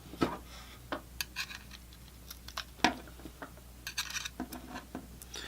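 Irregular small clicks and taps of small tools and parts being handled while taking apart a mini PC stick, the loudest about three seconds in.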